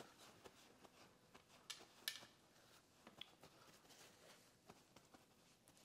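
Faint rustling and dabbing of a paper towel patting a raw leg of lamb dry on a metal sheet pan, with a few soft crackles and ticks, the clearest about two seconds in.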